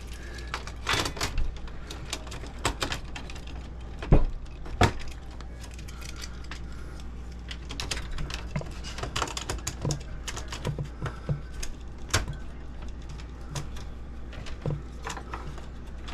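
Irregular clicks, taps and small metallic knocks from hand work on an old electrical panel box while split breakers are handled and fitted, over a low steady hum. The louder knocks come about four and five seconds in, and again about twelve seconds in.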